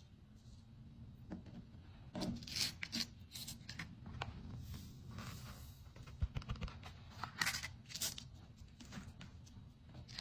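Sand painting being worked by hand: paper peeled and sand rubbed across a sticky sheet, in irregular rustling and scraping strokes, loudest about two seconds in and again near eight seconds.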